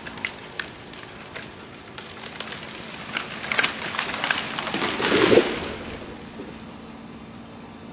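A felled pine tree cracking and snapping as it starts to go over, then falling through the neighbouring trees with a swish of branches and a crash about five seconds in, the loudest part.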